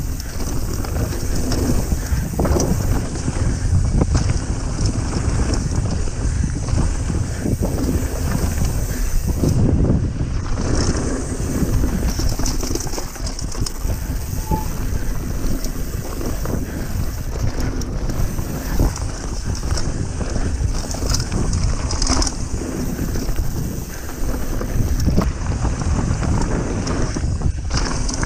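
Mountain bike riding over a rough dirt and rock trail: wind buffeting the microphone, tyres rumbling over the ground, and the bike rattling and knocking over bumps.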